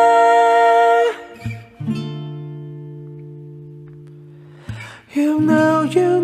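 Background song with acoustic guitar: a held note breaks off about a second in, a chord is left ringing and slowly fading, then singing with strummed guitar comes back in near the end.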